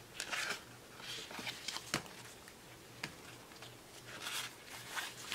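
Pages of a paper sticker book being flipped and handled: soft rustling of paper in several spells, with two light taps about a second apart midway.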